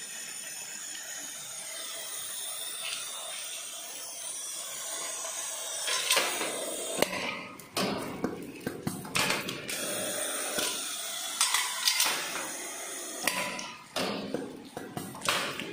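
Automatic bagging machine cycling: a run of sharp clicks and knocks from its pneumatic clamps and jaws, with bursts of air hiss, starting about six seconds in after a steady hiss.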